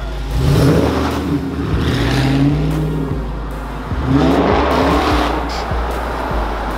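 Dodge Scat Pack's 392 HEMI V8 exhaust revving as the car accelerates, in two rising pulls, the second starting about four seconds in.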